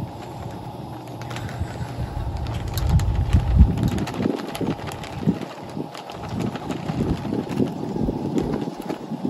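Flour poured and shaken from a plastic container into a zip-top plastic bag: a run of short, irregular rustles and taps. A low rumble underlies the first three or four seconds.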